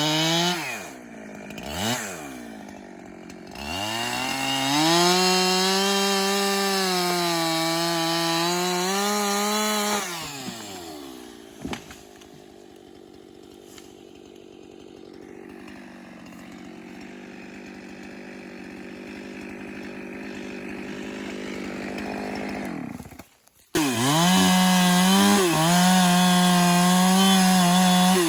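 Two-stroke chainsaw cutting timber posts, running at full throttle with two brief dips in revs early on. About ten seconds in it drops to a much quieter, lower run for some seconds, cuts off abruptly, then comes back at full throttle.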